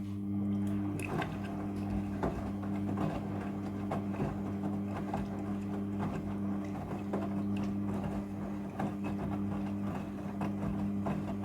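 Front-loading washing machine running with its clothes soaking: a steady motor hum with irregular clicks and knocks from the drum and the wet load.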